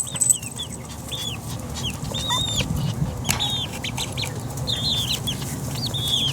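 Young chickens peeping: many short, high chirps, one after another and sometimes overlapping.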